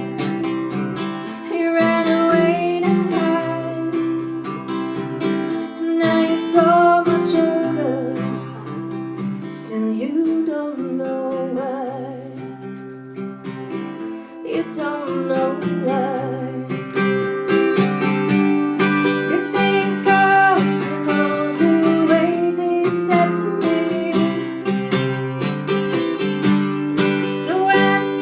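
Live acoustic band performance: strummed acoustic guitar with a woman singing, the music easing off briefly about halfway through before building again.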